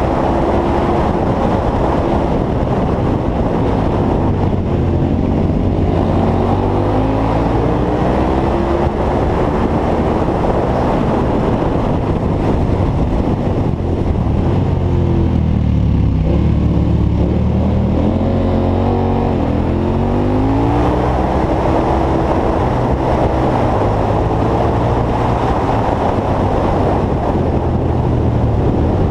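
Motorcycle engine heard from on board while riding, its revs easing off and climbing again through the bends, with a deeper dip and rise about halfway through, over steady wind rush.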